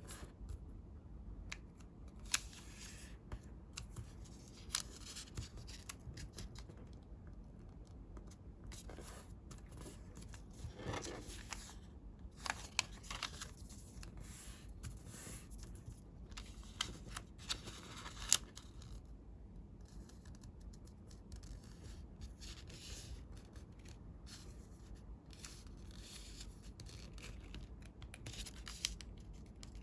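Colored paper being folded and creased by hand: intermittent crisp rustles, scrapes and sharp clicks, a few of them standing out louder.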